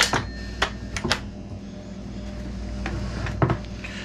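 Metal clicks and knocks of a Husqvarna 395XP chainsaw's guide bar being handled and fitted onto the saw body over the bar studs: a few sharp taps in the first second or so, then two more close together later on.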